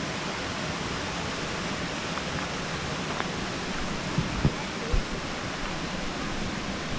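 Steady rushing of a shallow creek flowing over a flat rock bed and a low cascade, with a few low bumps about four to five seconds in.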